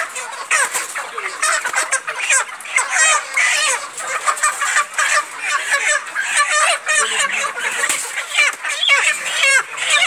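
A flock of broiler chickens calling, many birds at once in dense, overlapping short calls without a break.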